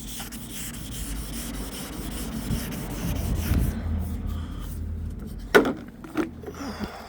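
1500-grit wet-and-dry paper rubbing back and forth on a car body panel during hand wet sanding, a steady scrubbing hiss. It stops a little over five seconds in, followed by two sharp knocks.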